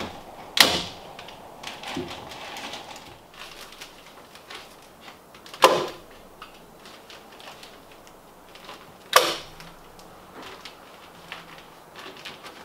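Three sharp clacks a few seconds apart, with faint rustling and small clicks between them from fiberglass insulation batts being handled and fitted between wooden floor joists.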